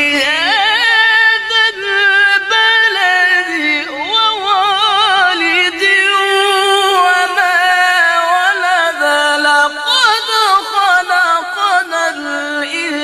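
A male Quran reciter chanting in a high voice, drawing out long melismatic phrases with fast trills and wavering ornaments, taking only short breaths between them.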